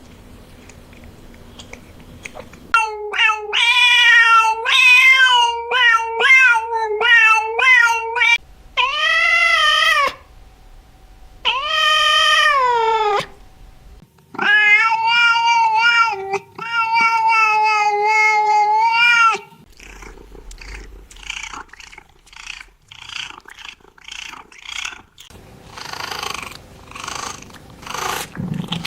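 Cat-like meowing: a quick run of short meows, then two longer meows that rise and fall, then long, drawn-out meows held at a steady pitch. These are followed by softer, rhythmic purr-like rasping.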